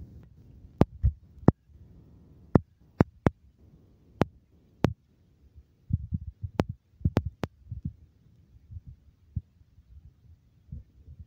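Handling noise from a hand-held phone carried while walking: irregular low thumps on the microphone and a dozen or so sharp clicks at uneven intervals, most of them in the first five seconds.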